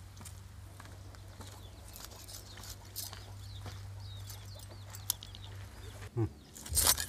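Birds chirping and calling in the background over a low steady hum. Near the end come loud scrapes and knocks of a knife blade cleaning scales off small fish.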